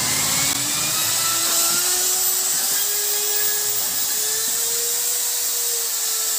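Electric drill spinning a wire brush against the combustion chamber of an old Royal Enfield Bullet cylinder head, cleaning it: a steady whir with a scratchy hiss, the motor's hum rising slowly in pitch.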